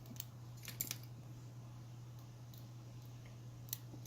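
A few light metallic clicks from handling a small, worn padlock, over a steady low hum.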